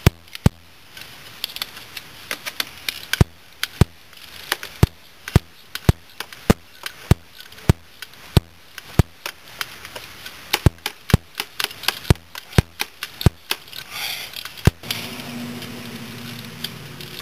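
Socket ratchet clicking as a bolt is turned on the cylinder head of a Yamaha Badger YFM80 engine: single sharp clicks at an uneven pace, about two or three a second, stopping about 15 seconds in. A low hum follows near the end.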